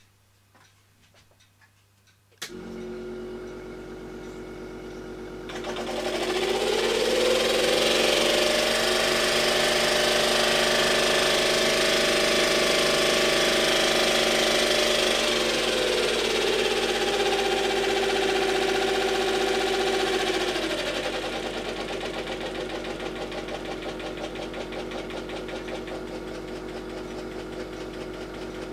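Peake Engines "Hypnocycle" miniature steam engine starting up and running fast. A steady hum begins about two seconds in. From about five seconds a loud hissing, rapid mechanical chatter comes in with a rising whine that holds, steps down about halfway through, and fades out after about twenty seconds, leaving a quieter fast ticking.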